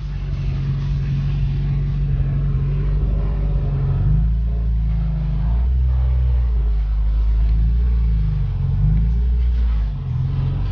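Car engine heard from inside the cabin while driving, its pitch rising and falling several times as the car accelerates and eases off, with a brief drop near the end.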